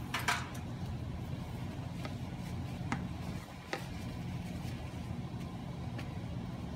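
A plastic slotted spatula spreading mashed potatoes in a glass baking dish, with a few sharp clicks as it knocks against the glass, over a steady low hum.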